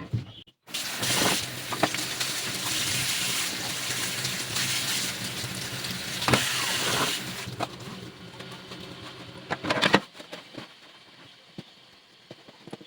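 Kitchen tap running into the sink while dishwasher filter parts are rinsed by hand, with a few knocks of the parts against the sink. The flow starts just under a second in, runs quieter from about seven seconds in and stops at about ten seconds.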